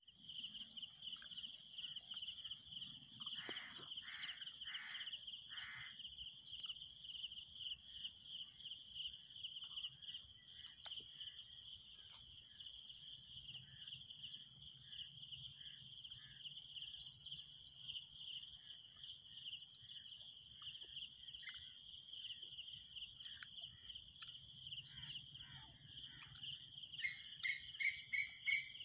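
Common quail calling in short, sharp notes: a few spaced notes about four seconds in, and a quick, louder run of notes near the end. Under it runs a steady high chirring of crickets.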